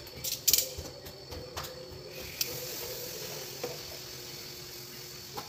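Strips of pork belly being laid onto a hot Edmark smartpan electric grill pan: a few sharp clicks of handling, then from about two seconds in a steady fat sizzle.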